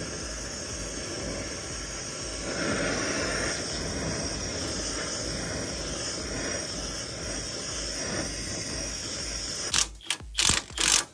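Oxy-acetylene torch flame hissing steadily as it heats a seized steering part to free it. About ten seconds in, a Milwaukee cordless impact wrench fires in several short, loud bursts.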